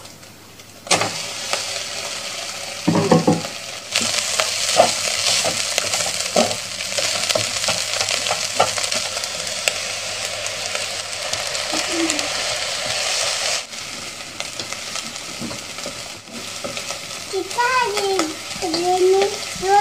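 Rice stir-frying in a pot: a steady sizzle with the scrape and tap of a wooden spatula stirring, with a dull knock about three seconds in. The sizzle is loudest in the middle stretch and drops back a little after about thirteen seconds.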